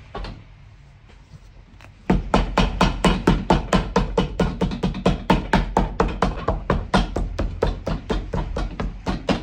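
A cobbler's hammer tapping rapidly on a sheet of red mirror-sole material laid over a shoe on a metal last. The strikes come about four a second in an even rhythm, starting about two seconds in, hammering the glued sole sheet down onto the shoe.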